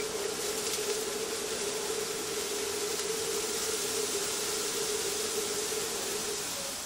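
Gas wok range running at a Chinese restaurant stove: a steady flame hiss with a steady hum, which drops out briefly near the end.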